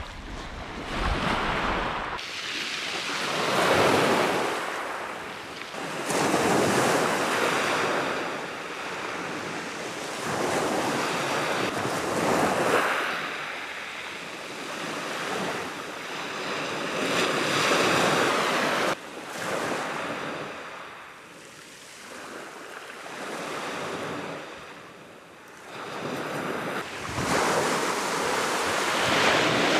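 Small waves breaking and washing back over a shingle beach, swelling and fading every three to five seconds.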